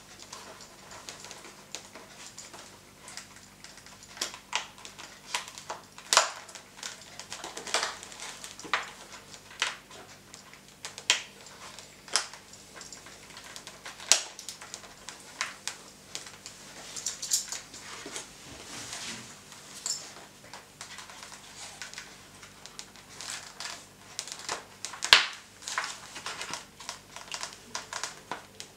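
Irregular clicks, taps and rustling from hands working a headset speaker, its cable and the padded lining into a motorcycle helmet, with one sharper click near the end.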